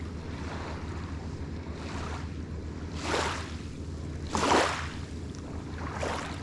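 Small waves washing onto a pebble shore, a swell about every second and a half, the loudest about four and a half seconds in, over a steady low hum.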